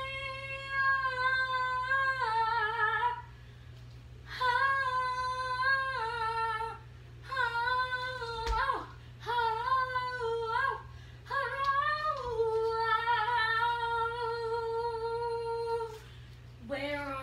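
A high female voice sings wordless 'ah' notes, long and held with bends and slides in pitch, in five phrases separated by short pauses.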